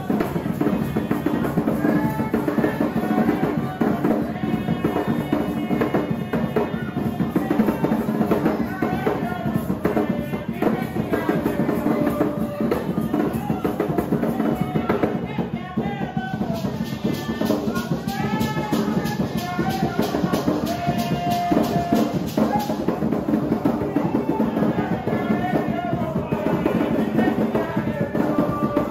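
Garifuna hand drums, large skin-headed wooden drums, beaten by hand in a steady, continuous rhythm, with voices singing over them.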